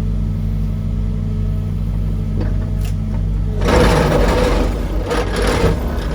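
Excavator's diesel engine running steadily; about three and a half seconds in, the vibratory hammer starts up with a loud, dense buzzing rattle for about three seconds as it shakes a dock piling down.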